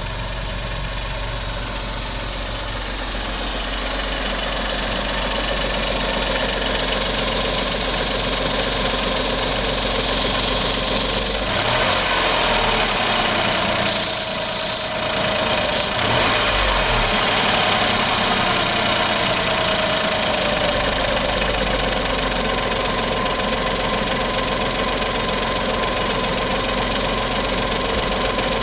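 Car engine running at idle with an abnormal noise from the PCV valve, likened to the creaking of a longhorn beetle: a sign of internal deterioration, wear and carbon buildup in the valve. The engine speed shifts briefly in the middle.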